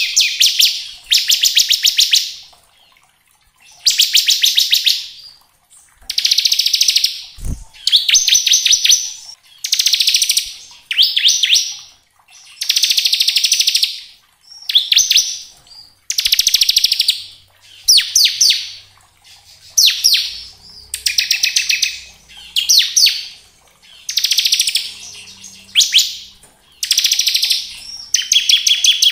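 Bar-winged prinia (ciblek) singing its rapid buzzing "ngebren" trill: loud, fast, rattling phrases about a second or two long, repeated over and over with short pauses.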